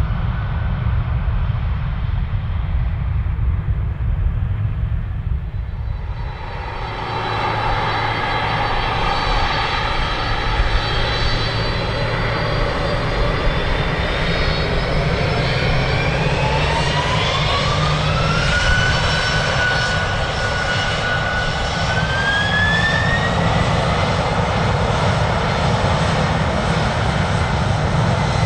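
A Boeing 737-800's CFM56-7B engines give a low rumble for the first six seconds. Then a Boeing 767-300ER's General Electric CF6-80C2 turbofans spool up for takeoff: a whine climbs in two steps, holding steady for a few seconds between them, over a steady low rumble.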